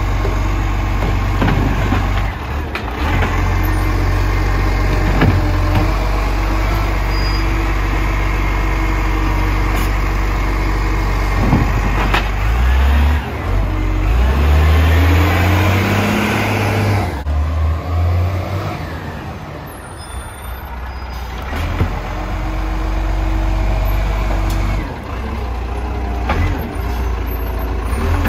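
Garbage truck engine running, revving up in a rising whine about halfway through before dropping back, with several short knocks along the way.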